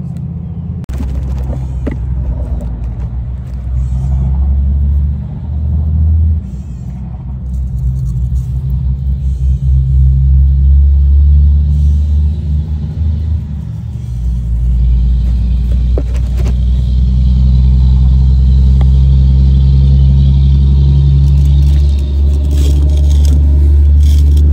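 Low rumble of heavy traffic on a major highway, swelling and easing as vehicles pass and loudest over the second half.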